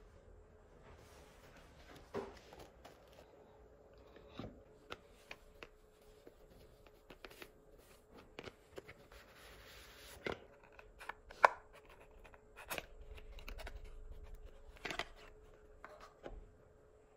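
Close-up handling of craft supplies: scattered light taps, clicks and rustles as plastic stencil sheets are leafed through, then a velvet drawstring pouch, a small cardboard box and a wooden-handled brass wax seal stamp are handled. A faint steady hum runs underneath.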